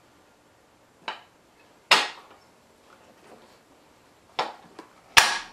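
Four sharp knocks, the loudest about two seconds in and again near the end: a mini bike's front fork assembly knocking against the frame as it is worked into place on the steering head.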